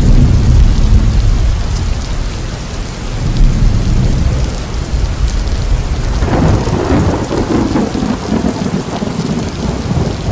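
Thunderstorm, most likely a sound effect: steady heavy rain with rolling thunder. A loud low rumble at the start eases off, and a new peal of thunder swells up about six seconds in.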